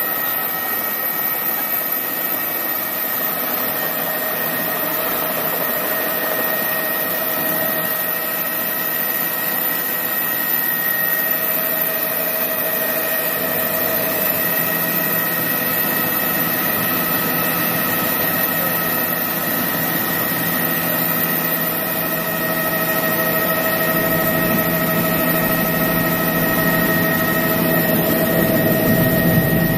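Helicopter turbine engine and rotors heard from inside the cabin during takeoff and climb: a steady high whine over a steady mechanical drone with several held tones. It grows a little louder and deeper near the end.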